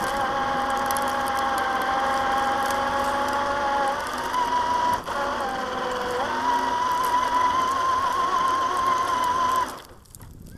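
Traxxas TRX-4 RC crawler's electric motor and geartrain whining steadily as it drives through snow. The pitch steps up to a higher note around the middle, with a short click, then the whine cuts off suddenly near the end as the truck stops.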